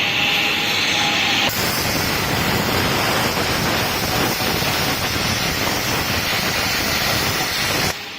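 LG-400 plasma cutter on a gantry CNC machine, its torch arc hissing. About a second and a half in the hiss abruptly becomes wider and harsher, runs steadily, then cuts off suddenly near the end.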